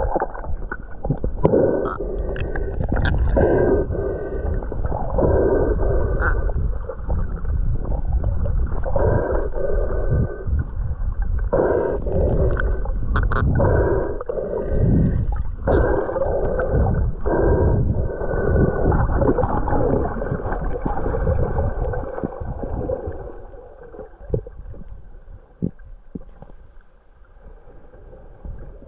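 Humpback whale song heard underwater: a string of moans and groans that rise and fall in pitch, over a steady low rumble of water noise. It grows fainter in the last few seconds.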